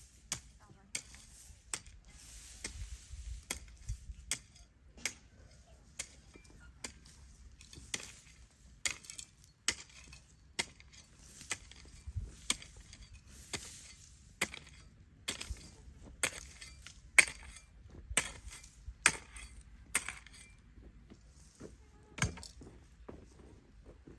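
A series of sharp knocks and clicks at an irregular pace, about one or two a second, over a faint hiss, with the loudest strike about two thirds of the way through.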